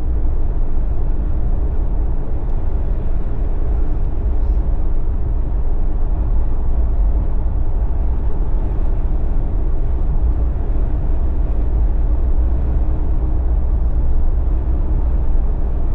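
Steady road noise of a Jeep on BFGoodrich KO3 all-terrain tyres cruising along: a deep, even rumble with tyre hiss over it.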